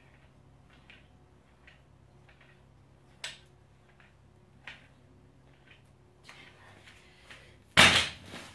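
Light dumbbells making faint scattered clicks during bent-over rows, with a sharper click about three seconds in and another a second and a half later. Near the end the dumbbells are set down on the floor with a single loud clunk.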